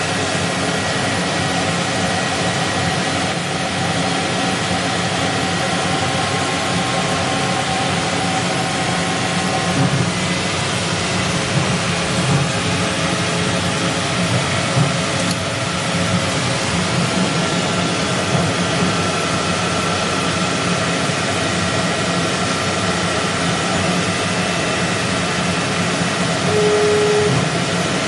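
Emco Turn 220 CNC lathe running: a steady machine hum and hiss with several steady whining tones that come and go. A short, clear tone sounds near the end.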